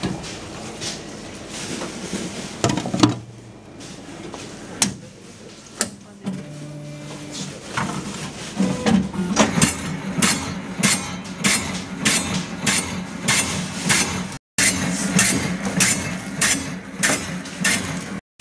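Self-service bread slicing machine: a few knocks as its lid and loaf are handled, then the motor starts with a steady hum and the blades cut through a crusty loaf with a rhythmic clacking, about two to three strokes a second.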